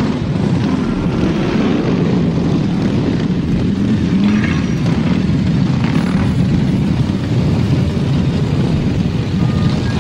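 Engines of a pack of motorcycles running together, a steady, loud, low, dense drone that holds at one level.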